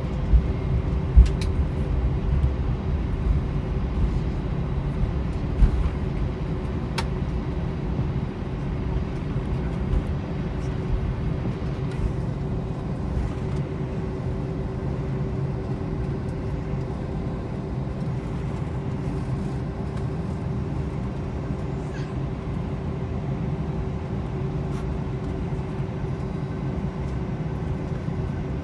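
Cabin noise inside an Airbus A321-231 on the ground before takeoff: a steady low rumble from the IAE V2500 engines at low power, with a steady hum and a few sharp knocks in the first six seconds.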